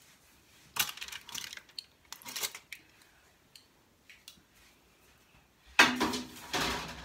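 Plates and cutlery clinking and scraping in short clatters, with a louder clatter about six seconds in.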